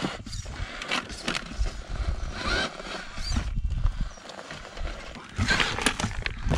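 FTX Ravine electric RC rock crawler clambering over rocks on alloy beadlock wheels: its motor and drivetrain whine in short spurts as it is throttled on and off. The tyres and chassis knock and scrape irregularly against the stones.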